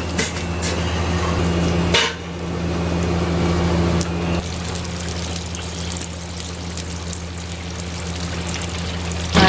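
Cooking oil poured into a hot cast-iron skillet over small freshwater fish, then the oil sizzling and crackling as the fish deep-fry. The crackling thickens about halfway through, over a steady low hum.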